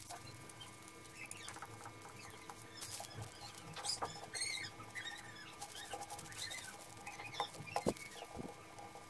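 Kitchen sponge loaded with paint dabbing against a lace-covered plastic bottle and a foam tray: soft, irregular pats and scratches, with a short squeak about four seconds in.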